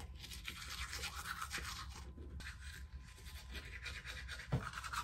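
Manual toothbrush scrubbing teeth: quick back-and-forth scratchy brushing strokes, with a short break about two seconds in.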